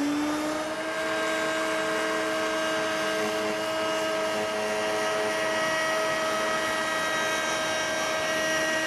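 Router in a router table running at full speed with a flush-trim bearing bit, trimming excess oak veneer flush with the leg stock: a steady motor whine over a rushing hiss.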